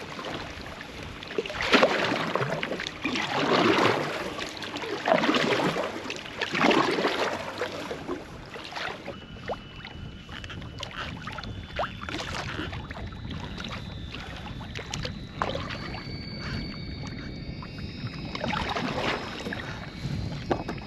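Water splashing and rushing in regular strokes alongside a Hobie PA12 fishing kayak, about four surges a second and a half apart, then quieter lapping with small knocks.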